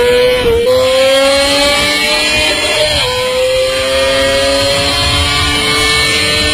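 Honda CBR250RR's small, high-revving four-cylinder engine pulling hard through the gears at very high revs, its high-pitched note climbing slowly and dropping sharply at an upshift about three seconds in.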